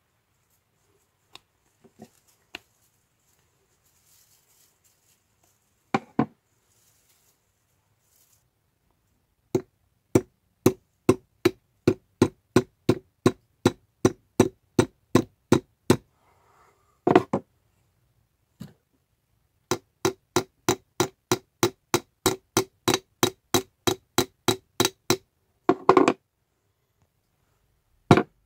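Small hammer tapping a homemade chisel made from a bullet casing, in steady strikes about two a second. There are two long runs of strikes, with a few heavier single blows before, between and after them.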